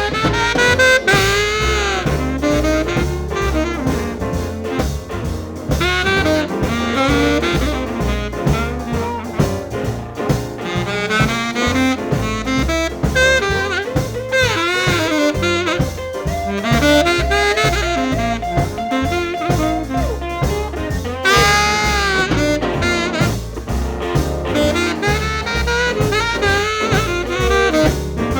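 Background music: an instrumental jazz-blues break with a saxophone solo over brass, walking bass and drums.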